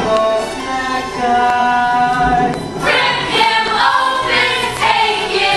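A mixed ensemble of young voices singing together in chorus. Long held notes give way about three seconds in to a fuller, louder passage.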